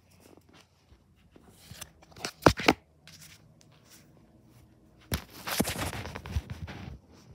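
Handling noise: a few sharp knocks about two and a half seconds in, then a couple of seconds of scraping rustle against the microphone.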